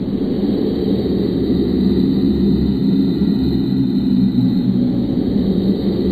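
A steady, loud low rumbling drone with no breaks, made as the sound effect for the Sitting Creature.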